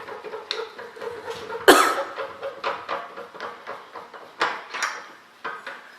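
Knocks and clunks of lathe accessories and tools being handled during setup. The loudest is a sharp clank about two seconds in, with a few more sharp knocks later.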